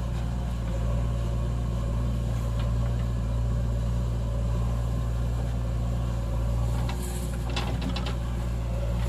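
Diesel engine of a JCB 3DX backhoe loader running steadily at work, with a few short clanks about seven to eight seconds in.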